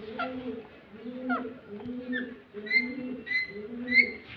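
A pigeon cooing in a steady run of low notes, with short high chirps and a few brief whistles from another bird over it.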